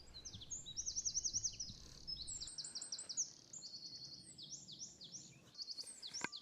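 Small forest songbirds singing: high, rapid runs of trilled notes, one phrase after another, loudest about a second in.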